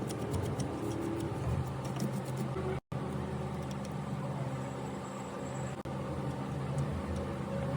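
24-inch high-speed fan running with a steady low mechanical hum: the abnormal noise the fan is being repaired for. The sound breaks off for a moment about three seconds in, then carries on unchanged.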